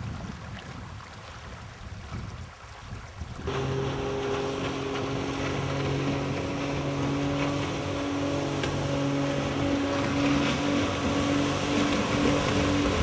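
Wind buffeting the microphone, then from about three and a half seconds in a steady engine hum with a few even tones.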